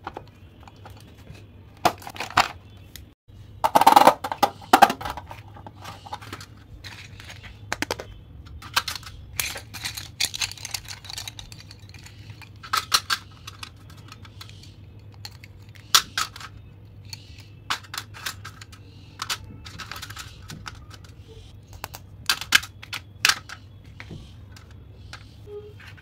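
Pencils, a sharpener and other small stationery being placed into pencil cases, clicking and knocking against a plastic pencil box and then a metal tin pencil case in irregular sharp taps. A steady low hum runs underneath.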